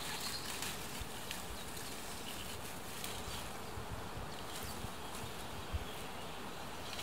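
Insects buzzing, with faint crackling and rustling of dry twigs being handled and pushed into a branch shelter, and a single dull thump a little before six seconds in.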